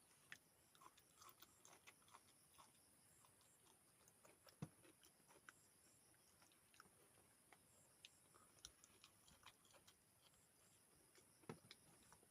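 Faint chewing and mouth clicks from someone eating close to the microphone, with scattered soft ticks and a slightly stronger click about four and a half seconds in and again near the end.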